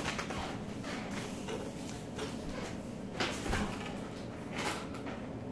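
Faint scattered knocks and rustles of things being moved about by hand while searching the floor for a dropped Lego piece, with one slightly louder knock about three seconds in.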